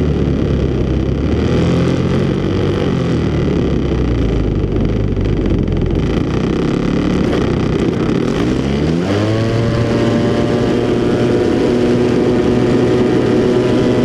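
DLE 61cc single-cylinder two-stroke gasoline engine of an RC aerobatic plane, heard from an onboard camera under heavy wind buffeting. It runs at part throttle, then about nine seconds in revs up sharply and holds a steady higher pitch.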